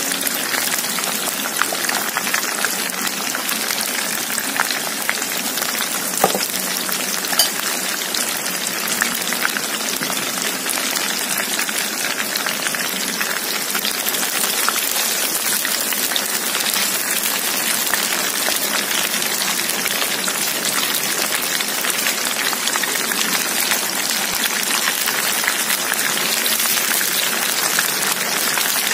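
Corn-flour-coated prawns deep-frying in a wok of hot oil: a steady, dense sizzle and crackle, with a few small clicks about six and seven seconds in.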